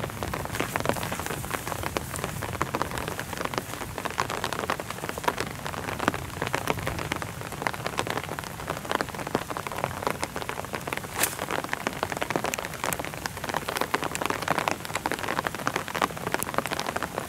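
Steady rain falling, with many small drops ticking.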